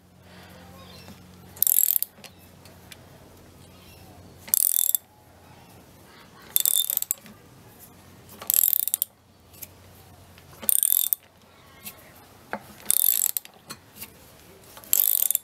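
Socket ratchet clicking in short bursts about every two seconds, seven in all, as it is worked back and forth to break loose and wind off a large nut on a mower's rear roller shaft.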